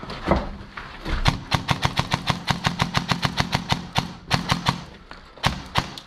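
Airsoft gun firing: a few single shots, then a full-auto burst of about ten shots a second for roughly two seconds, followed by a few scattered shots near the end.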